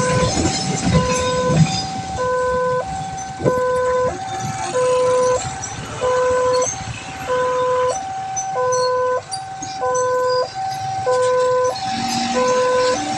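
Railway level-crossing warning alarm sounding a two-tone electronic signal, a lower and a higher tone alternating about every 0.6 s, warning that the crossing is closed for a train. Road traffic runs beneath it, and a vehicle horn comes in near the end.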